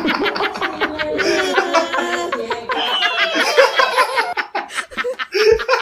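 A young man laughing hard and continuously, trailing off into short breaks near the end.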